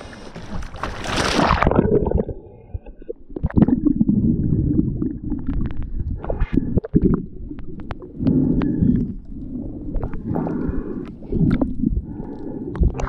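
A GoPro going from the surface under water with a splash about a second in, then muffled underwater sound: low surges of water movement and bubbles from a swimmer finning, with scattered sharp clicks.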